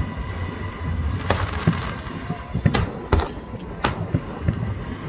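Aerial firework shells bursting overhead: a string of sharp bangs, roughly one a second, some louder than others.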